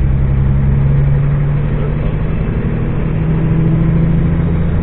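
Heavy truck's engine heard from inside the cab while driving, running steadily and rising slightly in pitch as the truck picks up speed.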